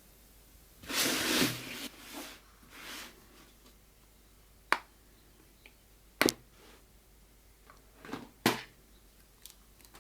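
Handling a hard plastic tool carry case: a scraping rustle about a second in, then a few sharp, separate plastic clicks and snaps.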